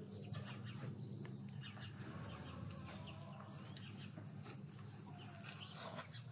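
Farmyard ambience: small birds chirping in many short high calls over a faint, steady low hum.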